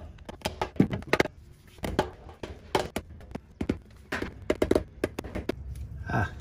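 Dead blow hammer knocking repeatedly on the Porsche Boxster 986's engine oil pan to break it free of its sealant after the bolts are out. The knocks are irregularly spaced, some coming in quick runs of two or three.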